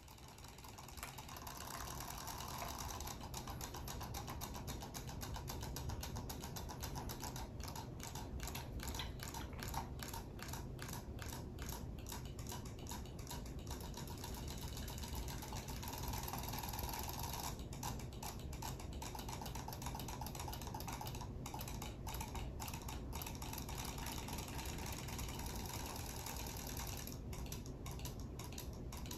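Small battery-powered robotic fish toys running in a basin of water, their tail motors making a fast, even mechanical ticking whirr.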